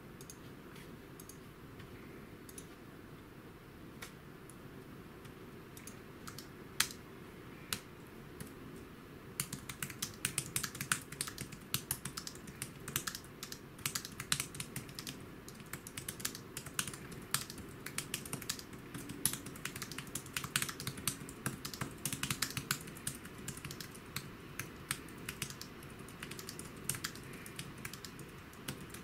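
Typing on a budget Battop Bluetooth keyboard. For about the first nine seconds there are only a few scattered key presses, then it becomes steady, rapid typing.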